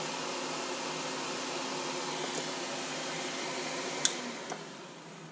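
Soldering fume extractor fan running with a steady whir. About four seconds in there is a sharp click, and the fan noise then dies away.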